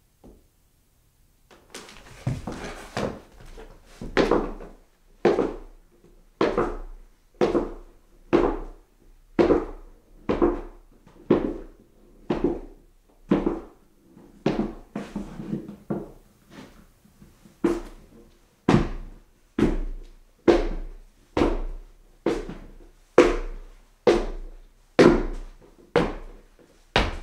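Footsteps climbing a flight of stairs: steady treads, about one a second, each a knock with a short decay. They begin about two seconds in.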